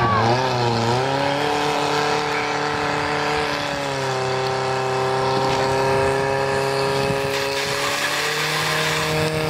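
Portable fire pump's engine running at high revs, its pitch wavering in the first second, then holding steady, dropping a step about four seconds in and rising again near the end.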